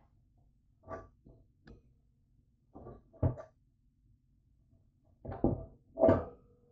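A large cooking pot being handled and pulled from a wire shelf rack: a run of uneven metal knocks and clanks against the rack. The loudest come near the end, and the last leaves a short ring.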